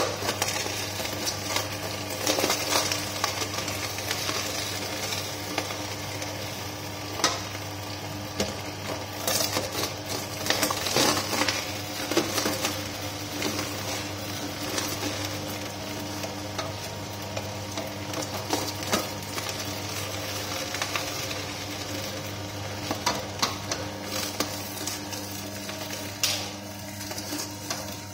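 Vertical slow juicer running with a steady low motor hum while its auger crushes carrots and celery fed into the hopper, giving irregular crunching and crackling with sharp cracks scattered through.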